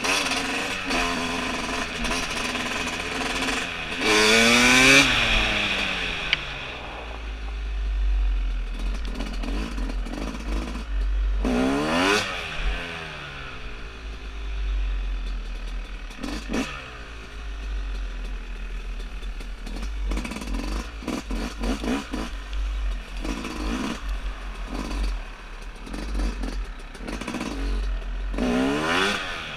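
2017 Yamaha YZ250's two-stroke single-cylinder engine heard on board while riding, its revs rising and falling again and again, with the loudest rev about four seconds in and further sharp blips around twelve seconds, sixteen seconds and near the end. A steady low wind rumble on the microphone sits under it.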